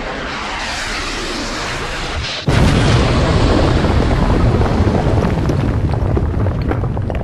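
Explosion sound effect: a rushing noise swells, breaks off for an instant about two and a half seconds in, then a loud boom rumbles on and slowly fades.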